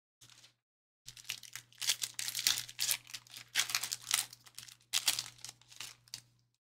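Trading-card pack wrapper crinkling and tearing as a pack of basketball cards is opened, in irregular rustling bursts that run for about five seconds.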